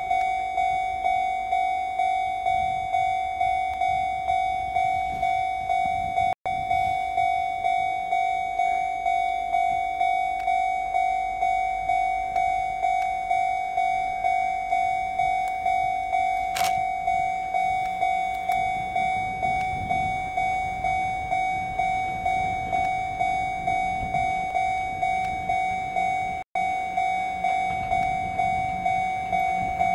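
Electronic railway level-crossing alarm ringing with a repeated single bell tone, about one and a half strikes a second. Near the end the low rumble of an approaching electric locomotive and its train rises underneath. The sound cuts out for an instant twice.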